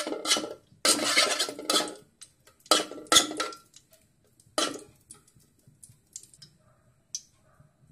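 A spoon clattering and scraping against a large aluminium pan as a spoonful of solid ghee is knocked into it: several clatters in the first five seconds, then only a few faint ticks.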